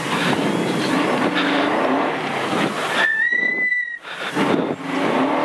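In-car sound of a rally car accelerating hard on a gravel stage, engine note climbing over tyre and gravel noise. About three seconds in the engine drops out for about a second while a steady high-pitched tone sounds, then the engine pulls again.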